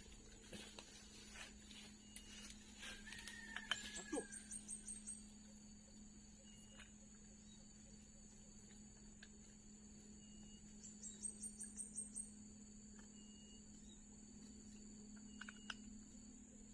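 Quiet outdoor background with short bursts of rapid, high-pitched insect chirping, three times, over a steady low hum. A few light clicks and taps sound in the first four seconds.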